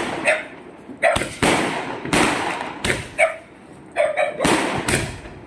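Firecrackers going off: about six sharp bangs at irregular intervals, some louder and closer than others, each with a short echoing tail.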